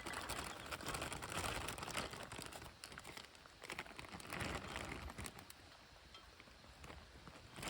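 Irregular rustling and crinkling with scattered small clicks, loudest in the first couple of seconds and again about four to five seconds in.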